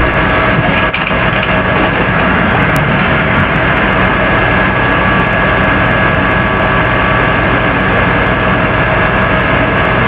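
Loud, steady hiss with an electrical hum of several steady tones running through it, unchanging throughout.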